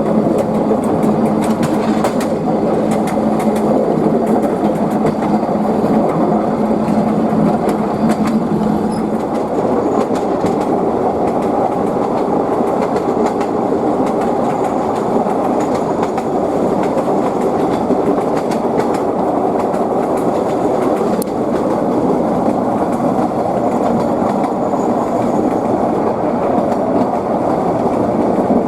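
Narrow-gauge train hauled by a TU2 diesel locomotive running steadily, its wheels clacking over the rail joints. A steady low hum under the rumble fades out about nine seconds in.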